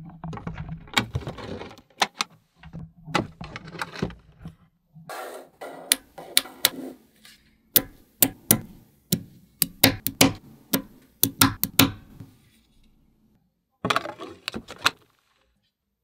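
Small magnetic balls clicking and snapping together as they are placed, with sharp single clicks and short rattling runs at irregular intervals. The clicking pauses for over a second near the end before a last short cluster.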